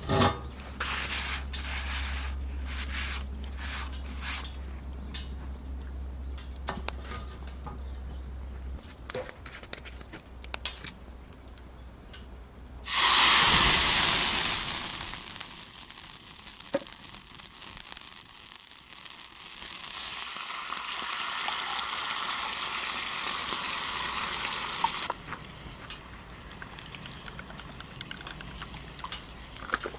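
Food sizzling in a frying pan over a wood fire, with light clicks of a utensil stirring. About halfway through, a sudden loud sizzle flares up and dies away over a few seconds, then the pan keeps up a steady sizzle.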